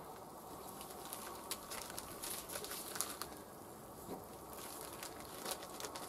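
Sausages being laid on a hot charcoal grill: faint sizzling with scattered sharp crackles and ticks, and some crinkling of the plastic sausage packaging.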